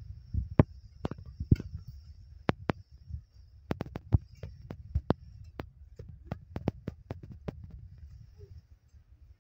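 Sewing-factory room sound: a low steady hum of machinery under scattered, irregular sharp clicks and knocks, which cluster together about halfway through.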